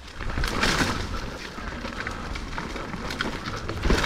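Mountain bike ridden over a rough trail: tyre noise on dirt and rocks with frequent knocks and rattles over a low rumble.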